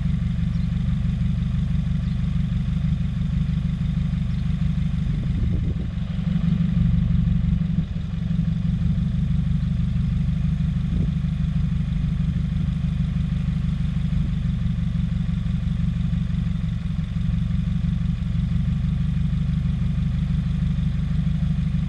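2017 Subaru WRX's 2.0-litre turbocharged flat-four idling rough, with a brief swell about six seconds in. The air-fuel ratio reads way off, and the owner suspects a boost or vacuum leak.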